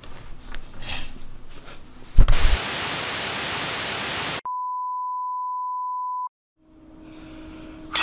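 Television static hiss cuts in loudly about two seconds in. It then switches abruptly to a single steady high beep, like a broadcast test tone, which lasts about two seconds and cuts off suddenly.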